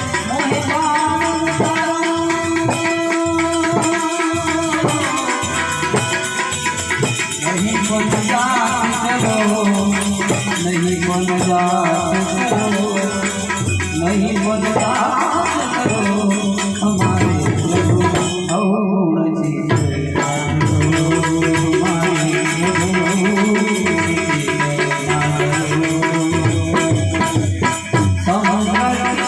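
Devotional bhajan music: a harmonium-led melody with a voice sliding between held notes, over a steady jingling rattle of hand percussion. The jingle drops out briefly past the middle.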